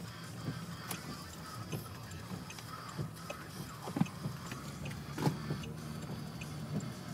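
Car heard from inside the cabin while driving: a steady low engine and road hum, with a few short knocks and clicks, the two loudest about four and five seconds in.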